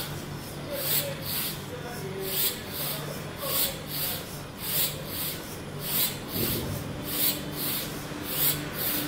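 Small Arduino painting robot's geared drive motors humming as it crawls across a tile floor, with a rhythmic hissing scrape repeating a little under twice a second.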